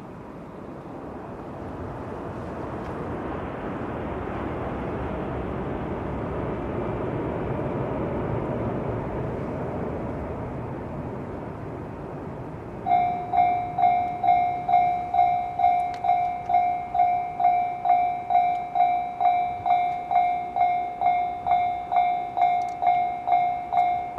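A JNR 169 series electric multiple unit passes, its running noise rising to a peak and fading away. About thirteen seconds in, a level-crossing warning bell starts up and keeps clanging steadily, about two and a half strokes a second.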